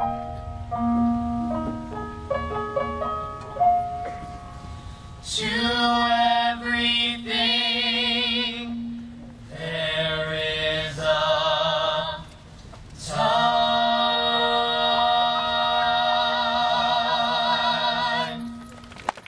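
A vocal trio, a girl and two boys, sings the closing phrases of a song. A short passage of single instrumental notes comes first, then the voices sing held notes in harmony with vibrato and finish on a long held chord that stops shortly before the end.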